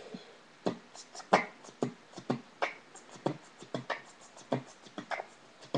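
Beatboxing into a cupped hand: a person's mouth making a steady rhythm of sharp percussive hits, about three a second, starting about half a second in.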